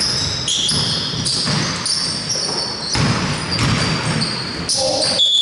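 Basketball play on a hardwood court: sneakers squeaking in many short chirps, with the ball bouncing and thudding among them. A long, steady high whistle, the referee's, starts near the end.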